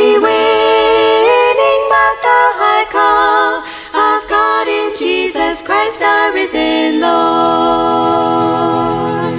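A women's vocal quartet singing a gospel song in harmony. The voices move through short phrases, then hold one long chord from about seven seconds in.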